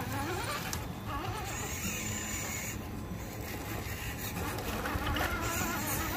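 Small electric motors and geared drivetrains of RC rock crawlers whining and buzzing as the trucks creep up a boulder. The whine wavers in pitch as the throttle changes.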